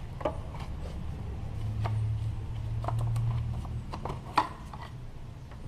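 Light clicks and rubbing as a gloved hand handles plastic parts on top of a car engine, over a low steady hum. The sharpest click comes about four and a half seconds in.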